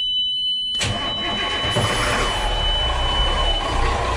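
A steady high warning buzzer at the helm sounds as the Caterpillar 350 hp inline-six inboard diesel is cranked. About a second in, the diesel catches and settles into a steady idle. The buzzer cuts off near the end, a few seconds after the engine starts.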